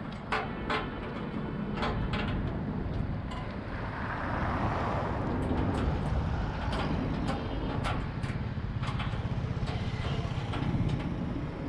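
An engine running steadily with a low rumble, swelling a little about four seconds in, with many short sharp clinks over it.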